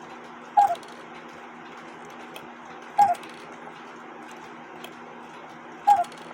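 Austrian quarter-hour cuckoo clock's bellows and pipes sounding three two-note cuckoo calls, each a short higher note dropping to a lower one with a click of the mechanism, about three seconds apart.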